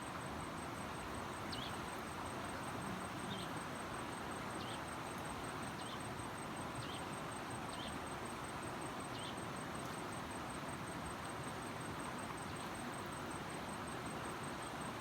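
Steady outdoor background hiss with a thin, high pulsing whine throughout, and short high chirps from a small animal about once a second, stopping about nine seconds in.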